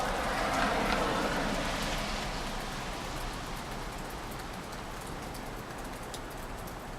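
Steady rain with scattered drops ticking on surfaces. A broad rushing swell in the first couple of seconds fades away by about three seconds in.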